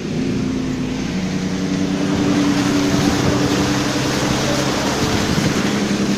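A car's engine running steadily as the car drives through shallow floodwater, its tyres sending up a constant wash of water noise over the low engine hum, heard from inside the cabin.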